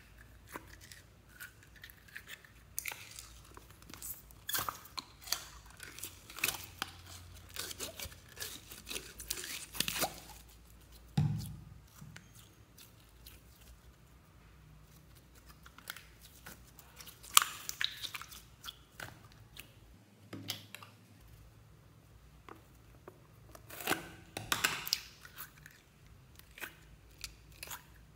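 Glitter slime worked by hand as it is squeezed out of a plastic tube and stretched: irregular sticky clicks and crackles, with a few louder clusters and one dull thump about eleven seconds in.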